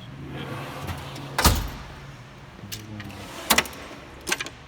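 Steel tool-box drawers sliding on their runners with sharp metal knocks, three of them: about a second and a half in, at three and a half seconds and near the end.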